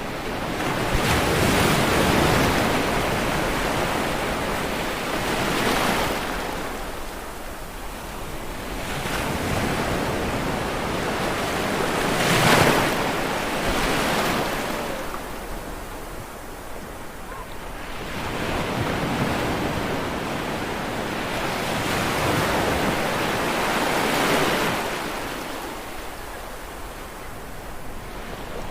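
Ocean waves breaking on a shore, one after another: the sound of surf swells up and dies away every few seconds, with a sharper, louder break about twelve seconds in.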